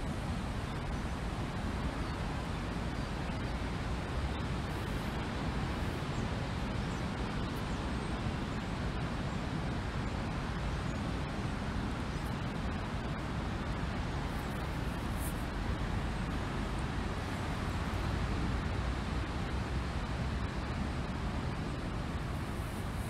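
Steady wind blowing over the microphone, a low rumbling rush with no gusts or breaks.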